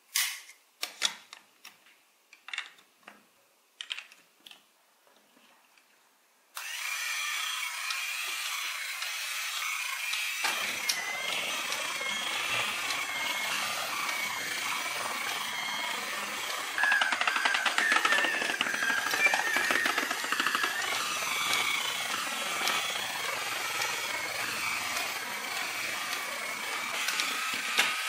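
Plastic building blocks snapping together with a few sharp clicks. About a quarter of the way in, a battery-powered toy motor block switches on and whirs steadily, driving the crane truck's plastic gears and drive belt. The whirr gains a lower grinding layer a few seconds later and gets louder past the middle.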